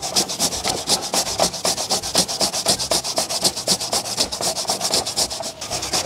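Vegetables grated by hand on a perforated stainless-steel grater: first auyama (Caribbean pumpkin), then a white-fleshed vegetable. The flesh rasps against the metal holes in quick, even strokes, about four or five a second, with a brief break about five and a half seconds in.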